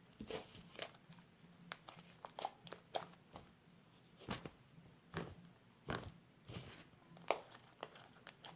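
Fluffy slime being squished and worked by hand: a dozen or so irregular sticky clicks and pops, the loudest near the end.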